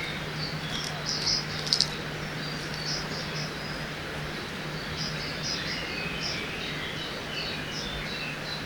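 Forest ambience by a river: a steady rush of flowing water under many small birds chirping in short high calls, with a couple of sharp clicks a little under two seconds in.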